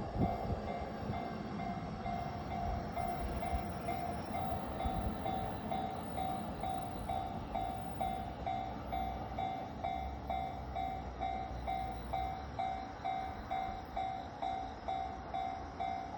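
Japanese level-crossing warning bell ringing steadily, about two strikes a second, over the low rumble of a Chuo Line 233-series electric train passing.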